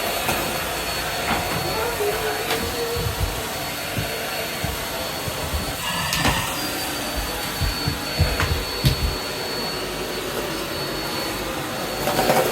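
Hetty vacuum cleaner running steadily with a constant high whine, with a few short knocks and clatters as it is worked over the floor.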